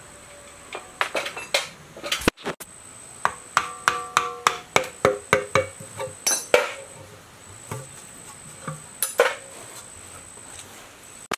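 Metal being struck: a series of sharp metallic knocks and clinks, a quick run of about a dozen in the middle, some ringing briefly, with a few more near the end.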